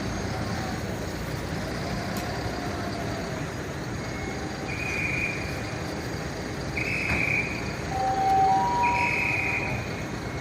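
Steady vehicle engine and traffic noise. From about halfway through, an electronic warning beeper sounds a high, steady beep of almost a second, repeating about every two seconds.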